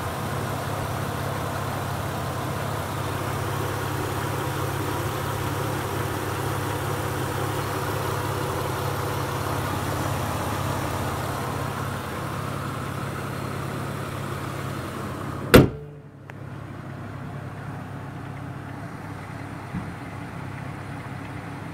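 1995 Acura Legend's 3.2-litre V6 idling steadily. About three-quarters of the way through, the hood is slammed shut with one loud bang, and the idle then sounds quieter and muffled.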